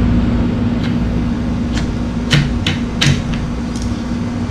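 Water pump cover of a Nissan NS70B outboard lower unit being slid up the drive shaft, clicking and knocking against the shaft about six times, with two louder knocks in the middle. A steady air-conditioning hum runs underneath.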